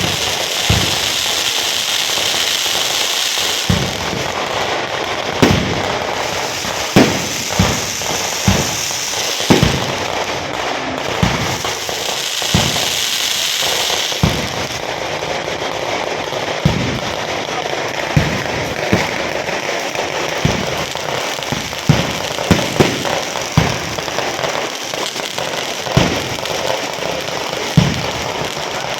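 Firecrackers going off in an irregular string of sharp bangs, some single and some in quick clusters, with spells of high hissing over a constant crackling background.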